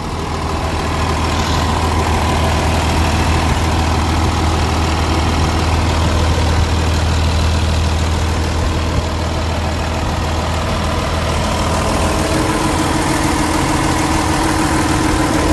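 Paccar PX-9 8.9-litre six-cylinder diesel idling steadily after warming up, a deep, even hum. A steady higher-pitched tone joins the hum about twelve seconds in.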